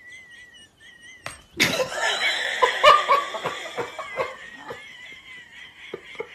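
A person laughing, breaking in suddenly and loudly about a second and a half in, then trailing off. Under it runs a thin, high, wavering whine.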